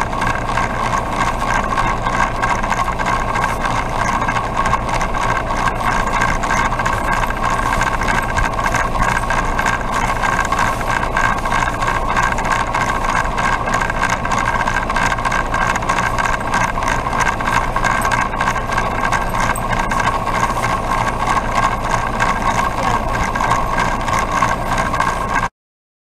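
2012 Rheem Classic heat pump outdoor unit running, its condenser fan and compressor giving a loud, steady hum. The sound cuts off suddenly near the end.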